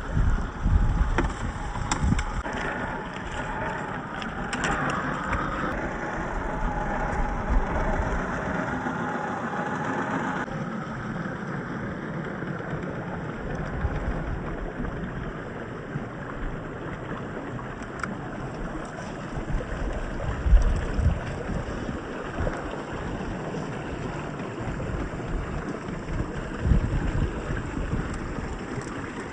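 Axial SCX10 III RC crawler's brushless motor and geared drivetrain running as it drives off-road, with gritty tyre noise and scattered knocks. A motor whine is heard for about the first ten seconds, then eases off.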